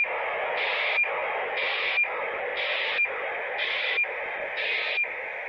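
Handheld radio receiver tuned to 402.700 MHz, picking up an RS41 radiosonde: steady receiver hiss with the sonde's data burst once a second, each burst ending in a short click and beep.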